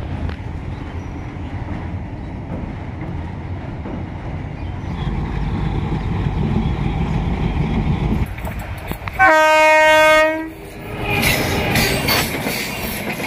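Indian Railways passenger train running with a steady rumble. After about nine seconds a diesel locomotive horn gives one long blast of about a second, and then coaches rush past with rapid wheel clatter.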